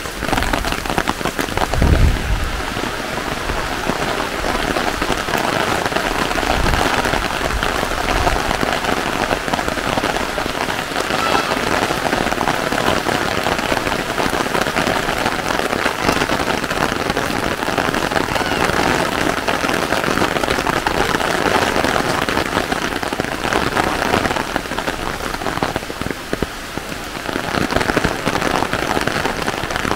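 Rain falling steadily as a dense patter of drops. There is a brief low thump about two seconds in.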